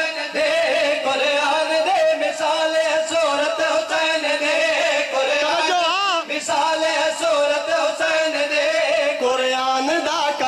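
A man's voice singing a devotional qaseeda line through a microphone and loudspeaker, drawing out long held notes with wavering ornaments.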